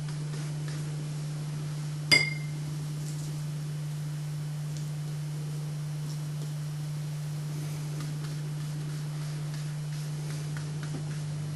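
Steady low hum throughout, with a single sharp, briefly ringing clink of painting gear about two seconds in and a few faint small taps.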